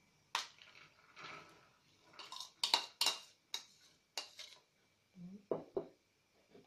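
A metal spoon and bowls clinking and scraping against a nonstick pan as boiled kidney beans and lentils are tipped in and scraped out. There is a quick run of sharp clinks about two to three seconds in.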